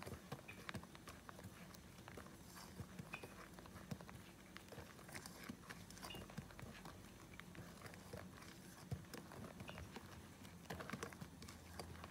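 Wire whisk stirring dry chickpea-flour mix in a glass bowl: a faint, irregular run of light ticks and scrapes as the wires hit the glass and drag through the powder.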